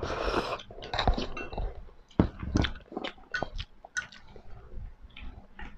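Close-up eating sounds of seafood ramen noodles: a brief slurp at the start, then irregular wet chewing clicks.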